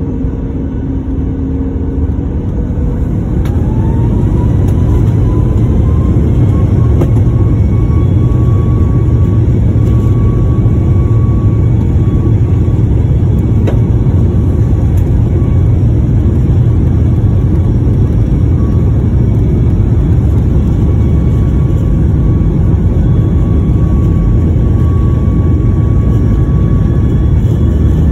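Boeing 737 MAX 8's CFM LEAP-1B turbofan engines spooling up to takeoff thrust, heard inside the cabin: a rising whine and growing rumble about two to four seconds in, then a loud steady rumble with a high whine as the jet rolls down the runway.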